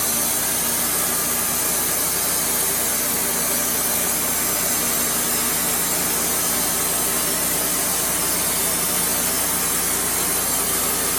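Wood-Mizer LT35HD portable sawmill running steadily, a constant engine-and-machine noise with no change in pitch or level.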